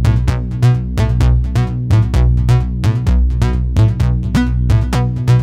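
Electronic background music with a steady drum-machine beat over synthesizer notes.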